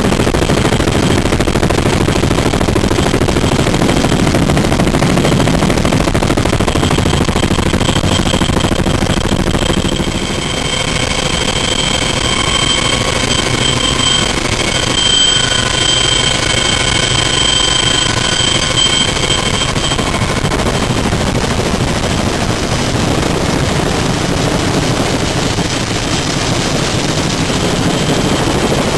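CH-46E Sea Knight tandem-rotor helicopter running: a loud, rapid rotor beat with steady high whines from the twin turbines and gearboxes over it.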